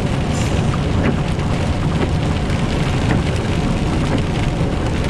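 Steady low rumble inside a moving truck's cab: engine and tyre noise on a rain-soaked road.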